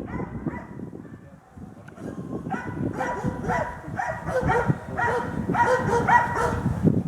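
Hunting dog barking at a wild boar, a run of repeated barks, about two a second, starting about two and a half seconds in.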